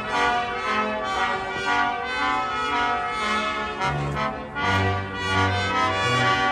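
Military brass band playing slow, held chords, trumpets on top and a low brass part moving in long notes that change about every second.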